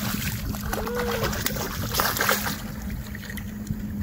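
A hooked fish thrashing and splashing at the water's surface right beside the boat, several short splashes, over wind buffeting the microphone and a steady low hum.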